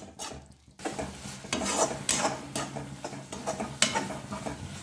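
Slotted metal spatula stirring and scraping a thick tomato and shallot masala around a metal kadai, the masala sizzling in the oil as it is sautéed until the oil separates. The strokes start about a second in after a brief lull, with a few sharper clatters of the spatula against the pan.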